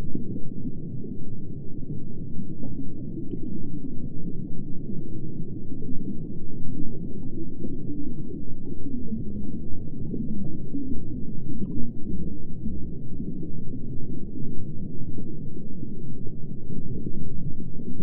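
Underwater ambience sound effect: a steady, muffled low rumble of water with no high end.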